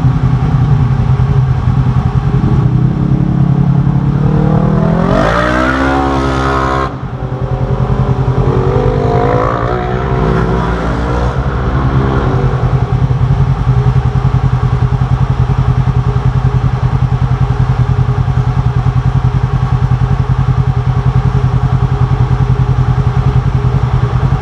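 Polaris RZR side-by-side engine idling with a steady, rapid pulse. About five seconds in, an engine revs up in a rising note that cuts off suddenly near seven seconds. A second engine note rises and falls from about nine to twelve seconds.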